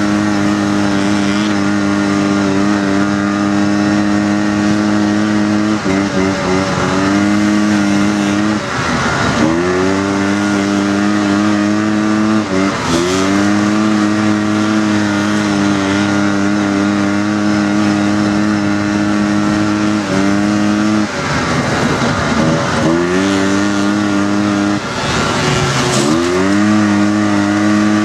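Dune buggy engine heard from on board, held at a steady high pitch under throttle. About five times the revs drop briefly and climb straight back as the throttle is eased and reopened.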